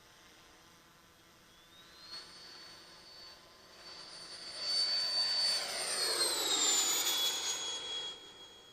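Mir-25 Boxfat RC jet's 145 mm electric ducted fan whining during a low pass: it grows louder as the jet approaches, drops in pitch as it passes about two-thirds of the way in, and fades near the end.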